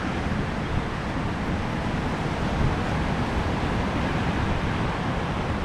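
Steady noise of surf washing on the beach, mixed with wind rumbling on the microphone.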